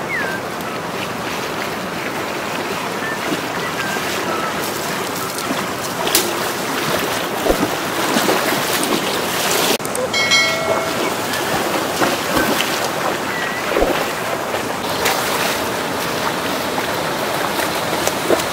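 Shallow river water rushing and splashing, with wind noise on the microphone. About ten seconds in, a brief chiming subscribe-button sound effect sounds over it, several clear tones at once.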